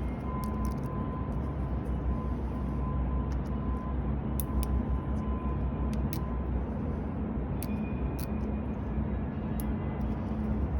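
Scattered light clicks of a lock pick and tension wrench working the security pins of an Ace five-pin laminated padlock, about ten in all, over a steady low hum.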